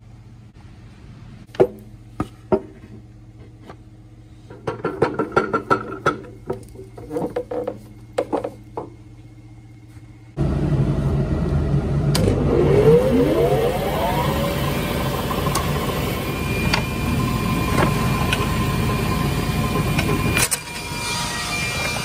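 A few clicks and handling knocks, then a woodworking machine's motor is switched on about ten seconds in. Its whine rises in pitch as it spins up and then runs steadily.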